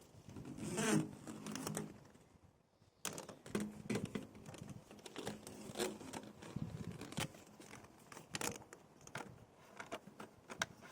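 Hands working plastic pool-filter parts and hoses: irregular clicks, taps and rustles, with a few brief low hums in between.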